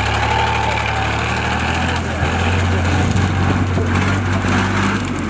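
Ural army truck carrying a Grad-type rocket launcher, its engine running steadily with a deep, even hum.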